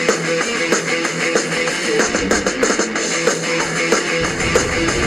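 Background music with a steady beat; a deeper low part comes in about four seconds in.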